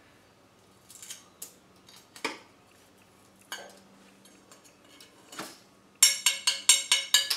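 A steel square file scraping and then rapidly tapping on a hardened 1084 steel knife blade to knock off its baked-on Satanite clay coating. A few scattered scrapes and clicks come first, then from about six seconds in a fast run of sharp, ringing metal taps, about seven a second.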